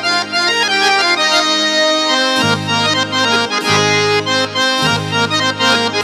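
Casio CT-X9000IN keyboard playing a melody on its custom "Harmonium 2" tone, a reedy, harmonium-like sound, over low held notes that change a few times.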